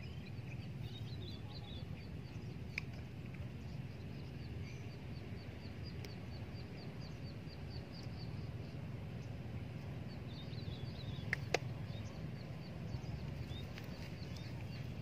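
A bird calling in a long run of rapid high chirps, about four a second, over a steady low background rumble, with two sharp clicks, the louder one about eleven seconds in.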